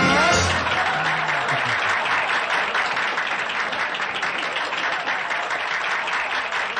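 A small band's last chord dies away in the first second or so, then a small crowd applauds steadily.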